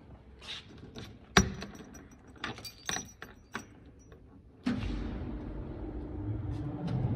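Clicks and a light key jangle at a paint booth's control panel, the loudest a sharp click about a second and a half in. Then, just after the green start button is pressed, the booth's air-handling fans start with a sudden steady rumble and hum that builds slightly over the last couple of seconds.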